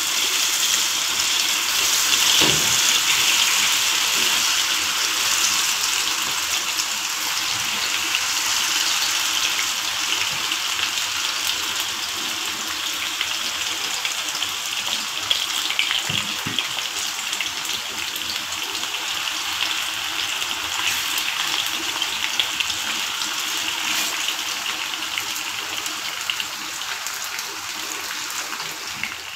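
Raw potato fries coated in gram flour sizzling in a frying pan of hot oil: a steady hiss, loudest in the first few seconds as they go in, then slowly easing.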